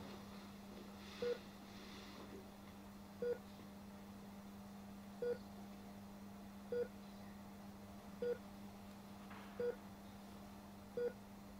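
Hospital patient monitor beeping at a steady pulse, about seven short single-pitched beeps that come a little closer together toward the end, over a steady low hum.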